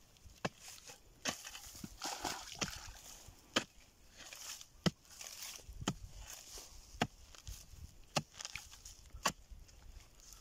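A small spade's blade chopping down into a grassy earth bank, about once a second, with rustling of dry grass and loose soil between the strikes.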